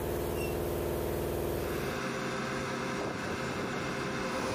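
A steady machine hum, replaced about two seconds in by the steady noise of jet aircraft running on a flightline, with a thin steady whine.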